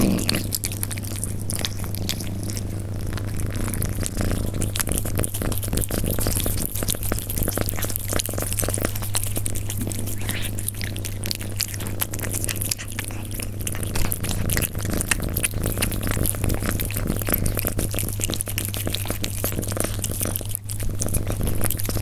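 Persian cat eating close to the microphone: a rapid, irregular run of small crunches and chewing sounds, with a steady low hum underneath.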